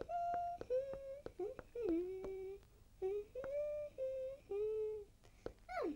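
A voice humming a simple tune in short held notes, ending in a quick falling slide, with a few light taps between the notes.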